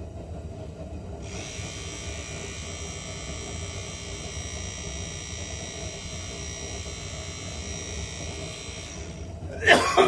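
The 2007 Honda Odyssey's front blower motor, out of the van and running on battery power, with a steady electric motor hum and a high whine that sets in about a second in; its shaft bushings are the diagnosed problem. A brief louder noise with falling pitch comes near the end.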